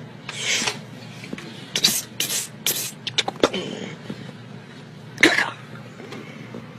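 Commotion in a crowded classroom, recorded on a phone: harsh, distorted bursts of voices and knocks over a noisy background, the loudest about five seconds in.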